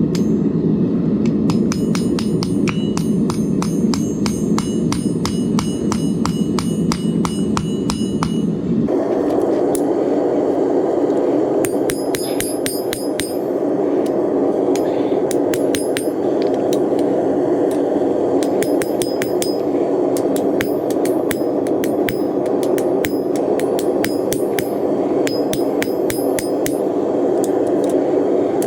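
Hammer blows on hot 1084 high-carbon steel over an anvil, about three a second, each with a metallic ring. The blows come in a fast run up to about nine seconds in, then in further runs with short pauses. Under them a gas forge burner runs with a steady rushing noise.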